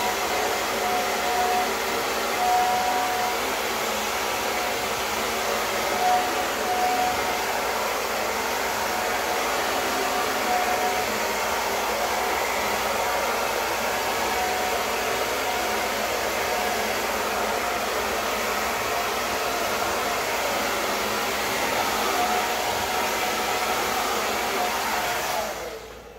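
Handheld hair dryer blowing steadily, its airflow rushing with a faint motor whine that comes and goes, used on hair being brushed dry. It is switched off near the end.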